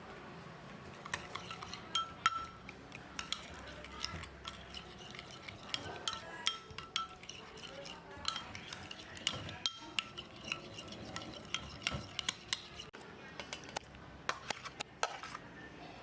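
Utensil stirring in a bowl, with many short, irregular clinks against its side.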